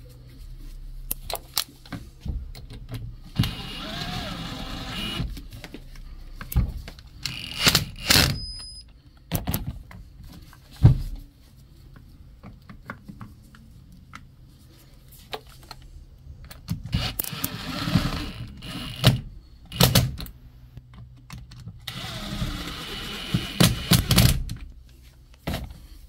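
Handling noise from a washing machine motor being reassembled and screwed back together: scattered clicks and knocks of metal and plastic parts, several longer scraping, rasping stretches, and a sharp knock about eleven seconds in.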